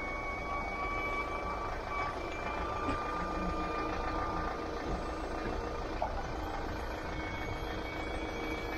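Hydraulic spec lift on a Nissan Navara 4x4 recovery truck running as its underlift arm is lowered, a steady whine over a low mechanical rumble.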